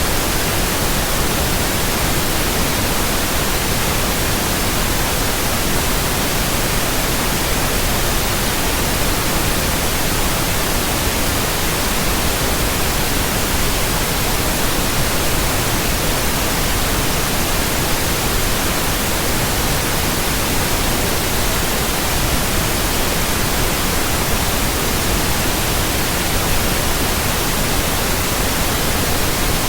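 Steady, unchanging white noise: an even hiss spread across all pitches, with no breaks or events.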